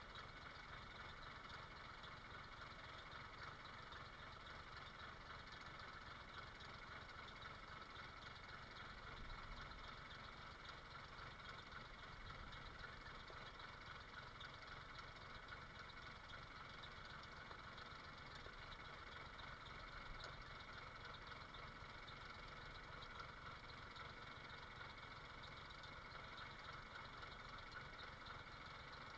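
Faint, steady engine hum, like a motor idling, with no change and no hammering strokes.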